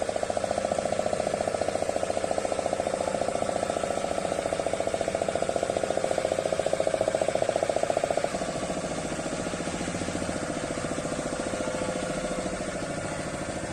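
Small single-cylinder diesel engine driving a ferry's long-shaft propeller, running at a steady fast chug; it eases slightly about eight seconds in.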